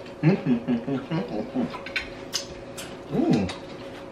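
Wordless vocal sounds from a man eating: humming and murmuring in the first second and a half, and a short one about three seconds in. Between them come a few sharp clicks of chewing and mouth sounds. A faint steady hum runs underneath.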